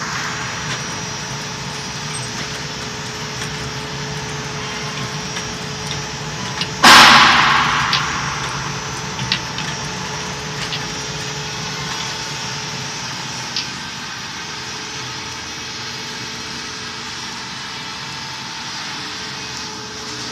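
A 3-in-1 rinsing, filling and capping machine for wine bottles running with a steady mechanical noise and a faint steady tone, with occasional light clicks. About seven seconds in, a sudden loud rush of noise fades away over about a second.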